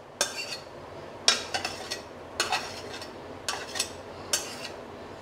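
Spatula scraping chicken curry out of a pan and knocking against the pan and the rim of a steel pot of rice. About nine short, sharp clinks and scrapes come in small clusters, roughly one every half second to a second.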